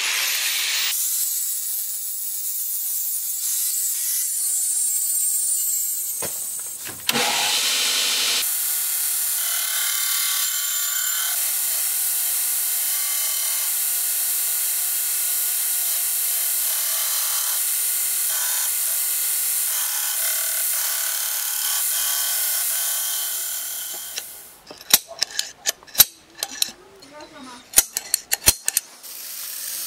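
Belt grinder grinding a Sleipner steel knife blank, a steady hiss that runs for most of the time. Near the end it gives way to a string of sharp, separate clicks from a spring-loaded automatic center punch snapping as it marks the steel.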